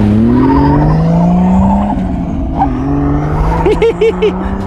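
Nissan Skyline R32 drift car's engine revving as it slides through a drift, its pitch rising and falling, then holding nearly steady. A man laughs near the end.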